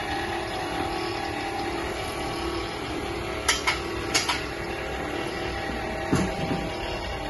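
Steady machine hum with a few sharp clicks or knocks in the middle: two about halfway through, a pair shortly after, and one more near the end.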